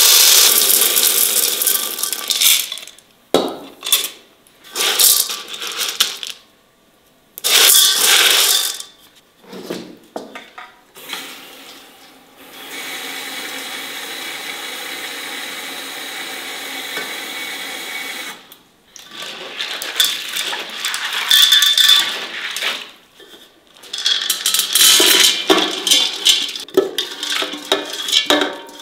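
Kitchenware being handled: glass bottles and enamel pots and bowls clinking and clattering, with a steady rushing noise for several seconds in the middle. Near the end, food rattles as it is tipped from an enamel bowl into a pot.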